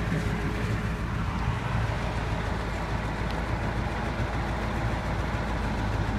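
Heavy truck engine running with a steady low drone.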